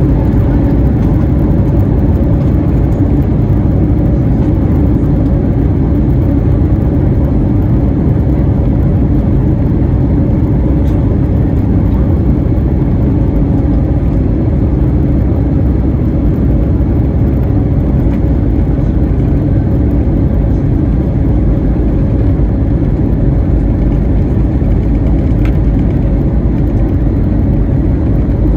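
Cabin noise of an Airbus A321neo taxiing, heard from a window seat: a steady low rumble with the engines' hum at taxi power and no spool-up.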